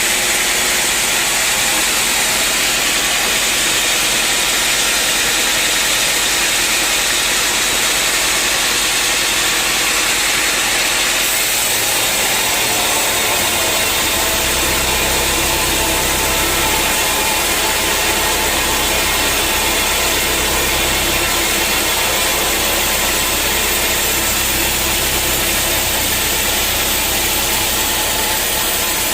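Sawmill machinery running steadily through teak, a loud dense hiss. A low engine hum joins it about halfway through.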